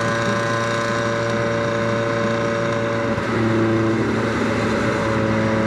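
1975 Cosworth Vega's 2.0-litre twin-cam four-cylinder engine running at a steady cruise under way, through an older exhaust that runs a little loud. The engine note dips briefly about three seconds in, then carries on slightly louder.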